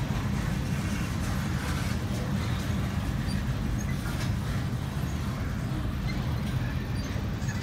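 Freight cars of a passing freight train rolling by at a grade crossing, heard from inside a car's cabin: a steady low rumble with a few faint clicks.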